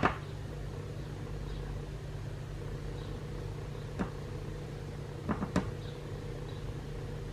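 Steady low hum, with a few short light clicks: one about four seconds in and two more in quick succession a second or so later.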